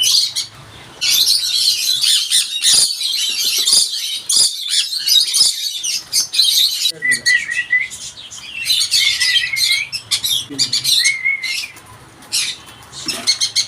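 Several pet lovebirds chirping continuously in a dense, high-pitched chatter, with a few short whistled glides in the middle.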